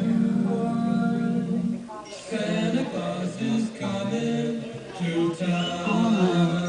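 Music with singing: long held notes, a brief drop about two seconds in, then a melody of shorter changing notes.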